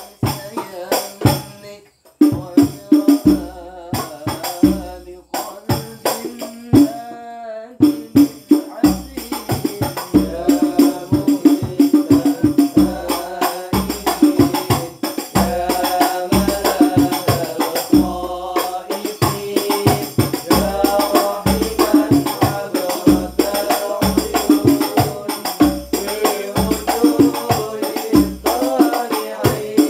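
Male voices singing a melody in Indonesian Islamic style over hand-struck frame drums (rebana) beating a steady rhythm, with a brief pause in the playing about two seconds in.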